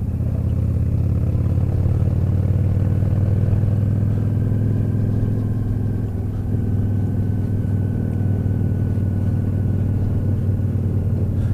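Honda NT1100's parallel-twin engine running steadily at low revs while riding, with a small shift in pitch about six and a half seconds in.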